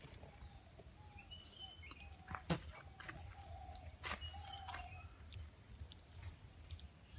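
Faint bird calls, a mix of high chirps and lower short whistles repeating. Two sharp taps cut in about two and a half and four seconds in, the first the loudest sound.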